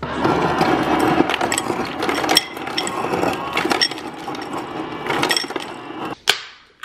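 Refrigerator door ice dispenser running, ice clattering into a glass tumbler for about six seconds, then stopping; a single sharp click follows shortly after.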